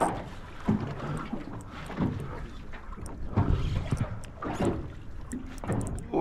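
Water slapping against the hull of a small aluminium boat in irregular low knocks about once a second, with wind buffeting the microphone.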